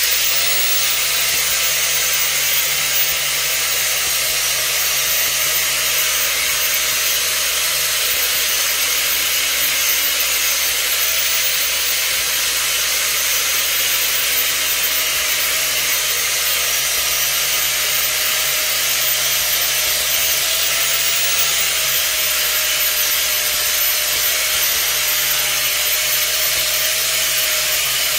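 Loud, steady whir of an electric motor blowing air, like a hair dryer running on one setting, with a thin whine over a rushing hiss. The whine rises slightly about twenty seconds in, then settles again.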